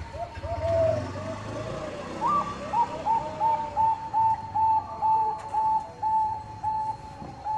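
Zebra dove (Thai 'bangkok' perkutut) cooing: a few short curved notes, then from about two seconds in a long run of short, evenly spaced notes at about two a second.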